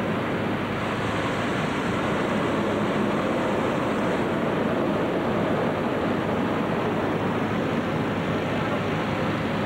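Steady, unbroken noise of hot air balloon burners firing and inflation fans running during a mass indoor balloon inflation, with no single event standing out.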